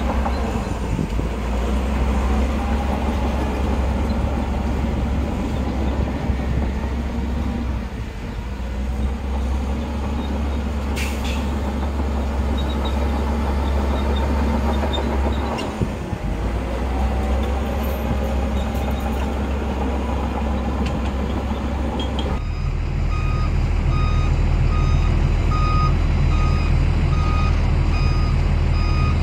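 Heavy diesel earthmoving machinery running steadily. About three-quarters through, the sound changes abruptly and a reversing alarm starts beeping at an even rate over the engine.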